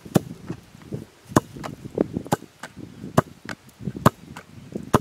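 A series of sharp knocks or strikes, about eight in five seconds, unevenly spaced.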